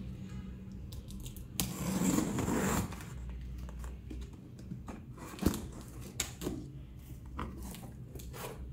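A knife slitting the packing tape on a cardboard box: a sharp click, then a loud tearing rip lasting about a second. After it come a few short knocks and rustles of the cardboard flaps being pulled open.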